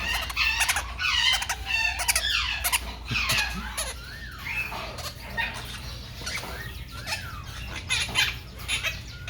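Caged pet parrots and other shop birds squawking and chirping over one another, with several whistled calls that rise and fall. A steady low hum runs underneath.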